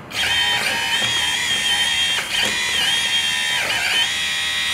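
Electric hydraulic pump of a Double E E111-003 1:14 RC hydraulic excavator running at 100% throttle: a steady high whine that dips briefly in pitch a few times as the arm moves.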